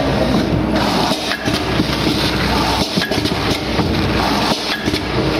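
Automatic vertical pouch packing machine running, with a steady mechanical clatter that swells and dips in a repeating cycle about every 1.7 seconds as its sealing jaws work through the pouch film.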